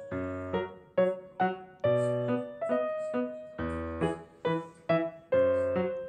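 Background piano music: a light melody of struck notes and chords, a few each second, each fading before the next.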